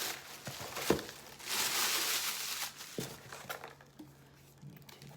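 Gift packaging being handled: a sharp tap or knock, then a second or so of rustling, crinkling wrapping, followed by a few quieter small clicks.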